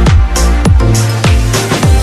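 Background electronic music with a steady beat: a deep kick drum that drops in pitch, about every 0.6 seconds, with hissing hi-hat hits and held synth notes between.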